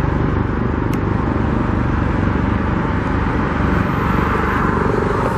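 Steady road traffic going by, a continuous rumble of vehicles with one short click about a second in.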